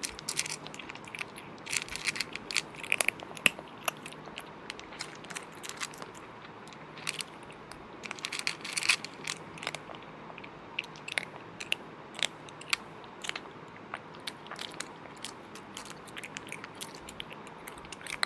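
Close-miked eating of a cooked sheep's head: irregular chewing and smacking with many sharp clicks, bunched in flurries with short pauses between.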